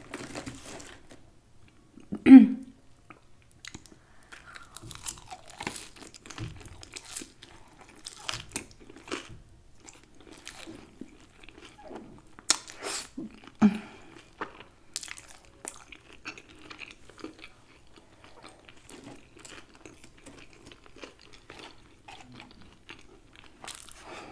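Close-miked chewing and crunching of crispy fried chicken, with wet mouth clicks and smacks spread throughout and one louder short mouth sound about two seconds in.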